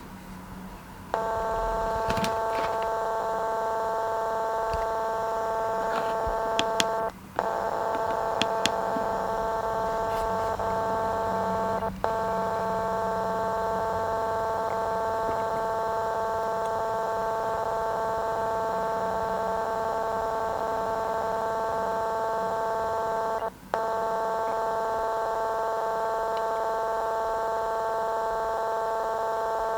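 Baby monitor giving out a loud, steady electronic tone of several pitches at once, starting about a second in and cutting out briefly three times. This is the unwanted noise that has newly started appearing on the monitor, a fault.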